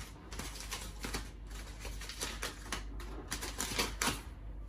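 Plastic sugar packaging being handled and opened: an irregular run of sharp crinkles and crackles, a few louder ones near the end.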